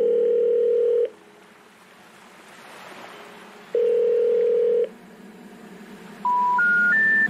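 Telephone call tones: a steady ringback tone about a second long, sounding twice a few seconds apart, then near the end three short beeps stepping up in pitch, the special information tone that signals a call that cannot be completed.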